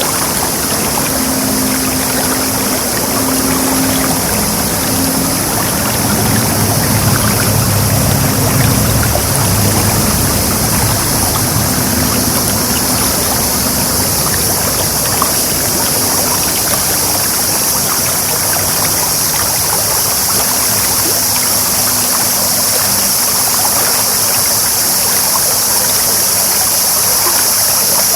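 A clear, shallow stream babbling steadily. A low engine hum runs underneath, strongest in the first half and fading to a faint drone later.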